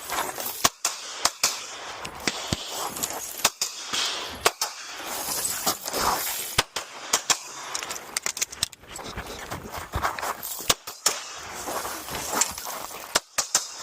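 9mm pistol firing a long string of shots at uneven spacing, some in quick pairs and some with short pauses between.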